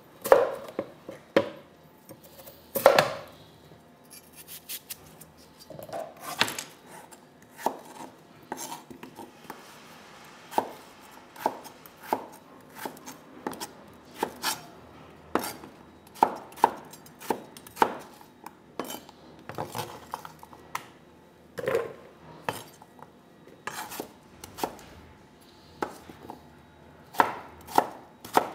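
Kitchen knife slicing raw potatoes on a wooden cutting board: a steady series of sharp knocks as the blade strikes the board, about one to two a second, unevenly spaced.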